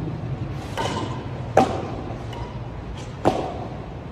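Badminton rackets striking a shuttlecock in a rally: three sharp hits, each with a brief echo off the court's walls.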